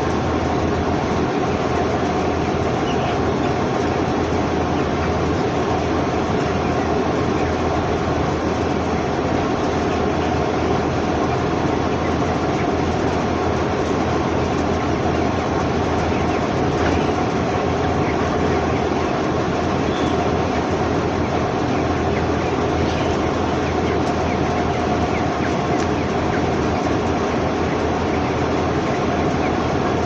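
Steady din inside a broiler house: the massed chatter of a large flock of broiler chickens over a constant mechanical hum.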